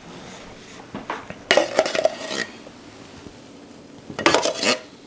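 A metal spoon clinking and scraping against a stainless saucepan and a tin can as leftover beans are scooped out. It comes in two short clattering bursts, about one and a half seconds in and again about four seconds in.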